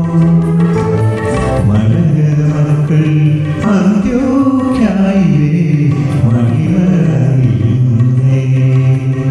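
Malayalam Christian devotional song: a male voice singing a slow melody of long, held notes that glide between pitches, over instrumental accompaniment.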